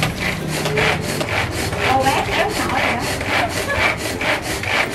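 Hand-pull string food chopper being worked hard, its cord yanked out in quick repeated strokes, about three a second, each stroke a rasping whirr of the spinning blades grinding a thick filling.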